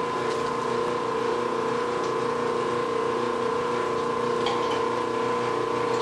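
Bluedog BWS-60 electric wire stripping machine running, its 1.5 hp motor and gearbox giving a steady hum with a whine above it. There is a light click about four and a half seconds in.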